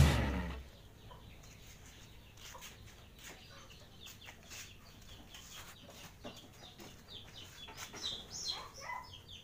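Music fades out within the first second, leaving a quiet stretch with faint scattered clicks. Near the end come a few short, falling bird calls.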